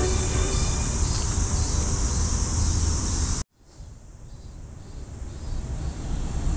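A steady high-pitched insect chorus over a low outdoor rumble. About halfway through, the sound cuts out abruptly, then fades back in gradually.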